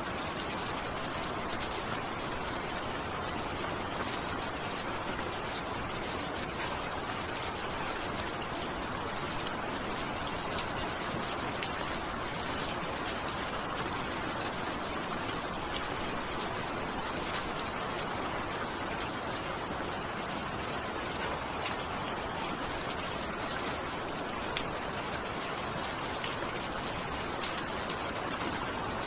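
Steady rain falling, with individual drops ticking sharply here and there over the even hiss.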